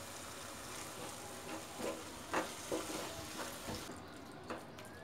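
Onion-tomato masala with water just added sizzling in a kadai, while a wooden spatula stirs it, knocking and scraping against the pan several times. The hiss of the sizzle falls away near the end.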